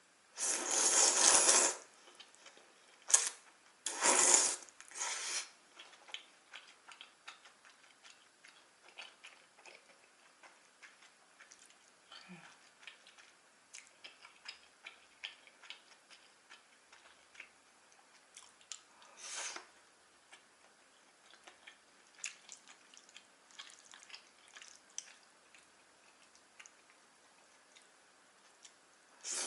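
Jajangmyeon noodles slurped loudly in three bursts about a second long (near the start, around four seconds in, and about two-thirds through), with quiet close-up chewing and small wet mouth clicks in between.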